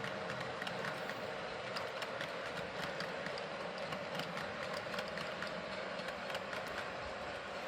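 Cavalex Class 60 model locomotive running on track: a steady hum with many light clicks.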